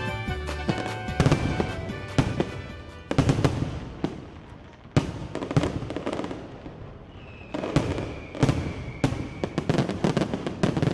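Fireworks going off: a series of sharp bangs with crackling, and a long whistle from about seven to nine seconds in. Background music fades out during the first three seconds.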